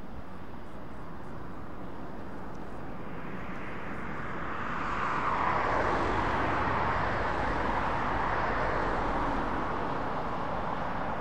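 Boeing KC-135R Stratotanker's four CFM F108 turbofans on landing approach: a steady jet rumble and whine that grows louder about four seconds in as the aircraft nears, its pitch sliding slowly downward.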